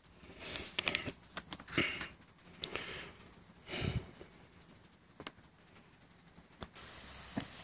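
A person sniffing and breathing quietly, with a few small knocks and rustles. Near the end a steady faint hiss sets in as the coffee water on the small stove comes to the boil.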